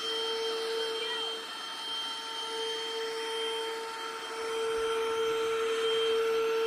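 A child's toy vacuum cleaner running: a steady motor whine with a hiss, getting a little louder about four and a half seconds in.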